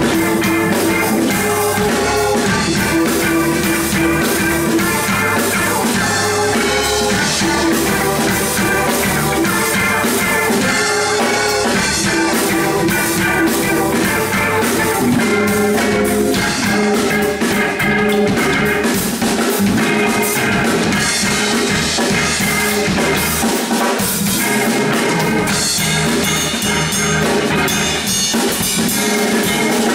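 Live instrumental funk-fusion band playing: drum kit, electric bass, electric guitar and keyboard.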